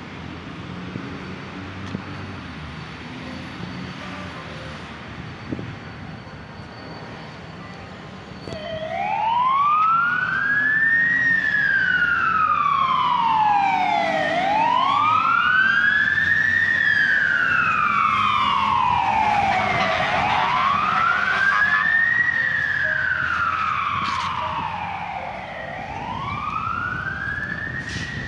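A siren wailing, its pitch rising and falling slowly about every five and a half seconds. It starts about eight seconds in over light road traffic noise and stays loud, easing a little near the end.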